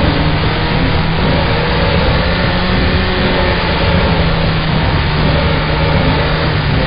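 Motorcycle engine running under way at fairly steady revs, with a constant rush of wind and road noise over it.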